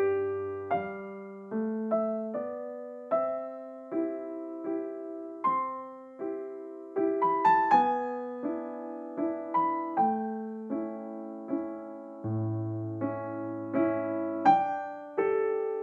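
Background piano music: a slow melody of struck notes, each fading away, with low bass notes near the start and again about three quarters through.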